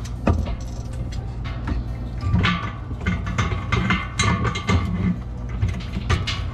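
Metal clicks and knocks of a keg coupler being handled and seated onto a steel beer keg's valve. A quick run of sharp clicks from about two seconds in to near the end, over a steady low hum.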